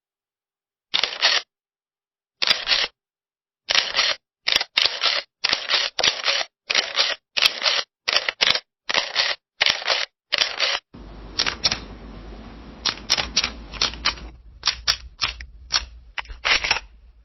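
Camera shutter firing again and again, each release a short burst of clicking, about sixteen of them in ten seconds and coming faster in the middle. About two-thirds through, a different shutter recording starts, with a steady low hiss under quick, uneven clicks.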